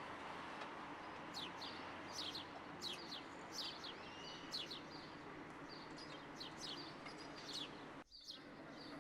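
Small birds chirping: many short, quick, falling chirps, several a second, over a steady outdoor background hiss, with a brief drop-out just after the eight-second mark.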